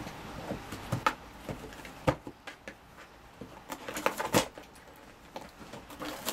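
A cat biting and clawing at a cardboard box: irregular crackles, scrapes and knocks of cardboard, with the sharpest snaps about two and four seconds in.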